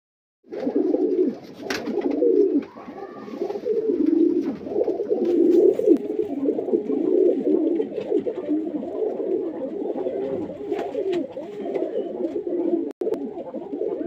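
A flock of fancy pigeons cooing together, a steady chorus of many overlapping low coos, with one sharp click about two seconds in.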